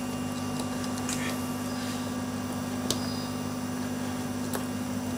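Steady low electrical mains hum, with a few faint clicks as wire ends are pushed into a wall socket on a test board.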